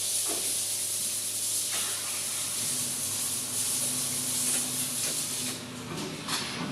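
A steady high hiss, like a spray, that cuts off about five and a half seconds in, with a low hum underneath from about two and a half seconds in.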